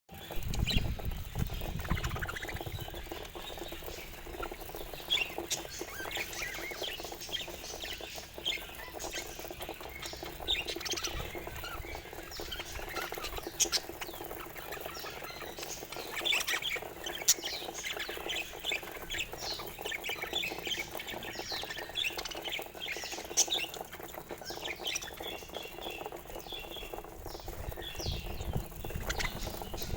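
Budgies chirping and chattering, many short quick calls overlapping without a break.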